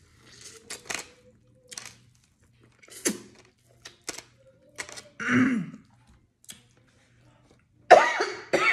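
A person biting and chewing spicy corn on the cob, with sharp wet mouth clicks and smacks, and a short hum about five seconds in. Near the end comes a loud cough as the spice catches in the throat.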